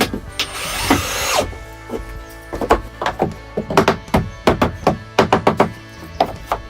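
Background music with a quick, irregular series of sharp knocks, like blows struck on wood, several a second, starting a couple of seconds in; a brief rasping noise comes before them.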